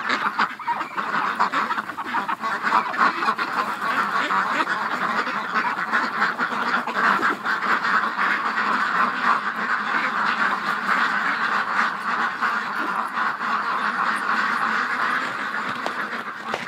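A flock of domestic ducks quacking all together, many overlapping calls in a continuous chorus.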